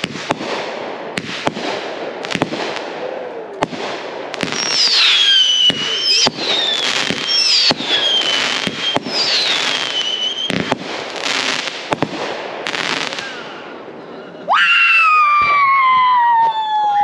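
Consumer aerial fireworks going off in quick succession: a string of sharp bangs and crackles, with several whistles falling in pitch in the middle. Near the end a loud, long tone slides slowly downward and is the loudest sound of all.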